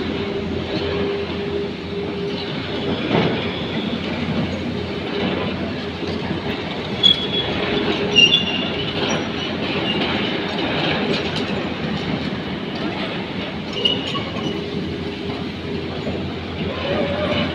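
Tracked excavator on the move: steel track chains clattering over a steady engine drone, with short high squeals from the tracks about seven, eight and fourteen seconds in.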